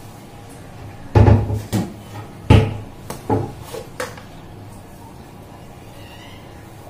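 Kitchen knocks and clunks as containers and utensils are handled and set down on the counter: about half a dozen sharp knocks between about one and four seconds in, then only low room noise.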